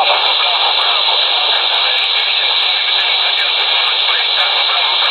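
Shortwave upper-sideband reception on the 15 m ham band through an AOR AR8000 receiver's speaker: steady, thin radio hiss and static, with a weak, fading voice from a distant amateur station in it.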